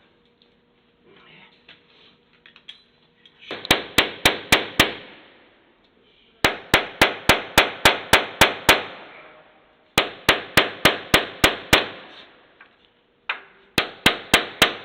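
Hammer blows on metal, in four quick bursts of about five to nine strikes each at roughly four strikes a second, each strike ringing briefly.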